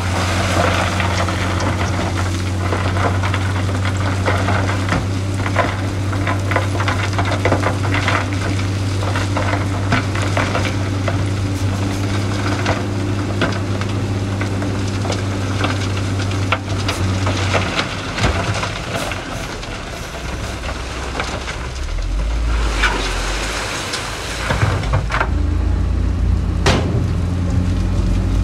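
Heavy diesel earthmoving machinery running steadily under a continuous crackle and clatter of stones being moved. About 18 seconds in the engine note drops and shifts, then settles into a steady hum again near the end.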